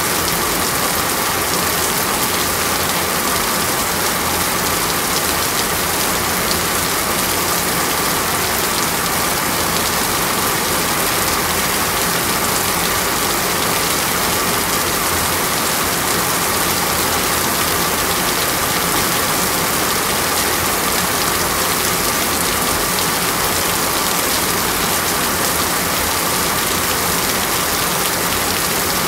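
Heavy rain falling steadily on a waterlogged road, an even, unbroken hiss.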